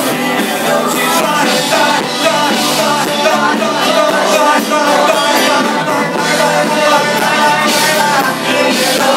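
Live pop-rock band playing a song, voices singing into microphones over drums; the sound is thin, with little bass.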